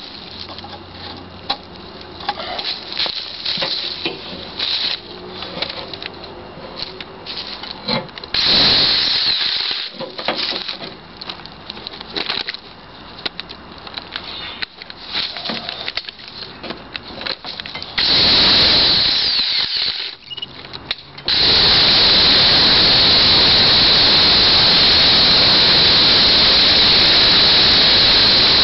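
Titan electric pole chainsaw cutting into a beech trunk near the ground, the chain working slowly through the hard wood. It runs in short broken bursts at first, then runs steadily and loudly with a high whine from about three-quarters of the way in.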